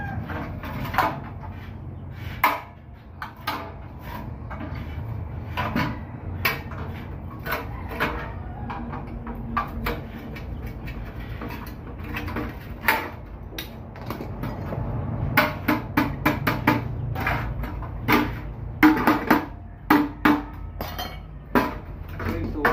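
Scattered metal clanks and knocks from a small sheet-metal panel board enclosure being handled and set down, with a quicker run of knocks in the last several seconds.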